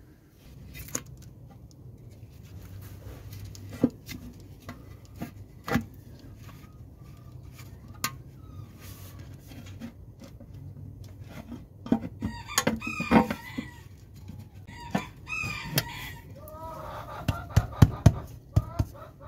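Chickens clucking, with a rooster crowing, in the second half. Scattered sharp clicks and knocks throughout, over a low steady hum.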